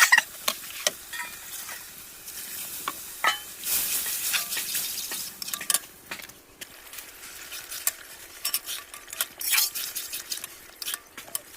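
Chickpeas frying in spiced oil in a pan, sizzling, while a spatula stirs and clicks and scrapes against the pan. The sizzle swells about four seconds in and again toward the end.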